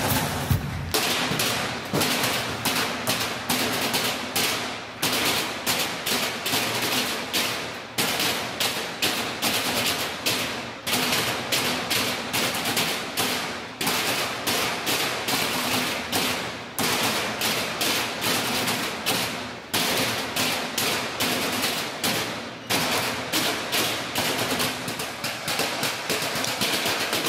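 Percussion ensemble drumming on trash cans with drumsticks: a dense, fast clatter of sharp strikes with regular louder accents.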